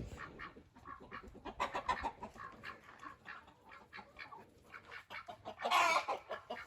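Chickens clucking, a string of short quick clucks with one louder, longer sound about six seconds in.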